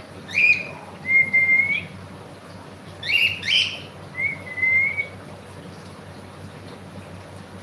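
A pet cockatiel calling: short harsh chirps alternating with drawn-out, level whistled notes, falling silent about five seconds in.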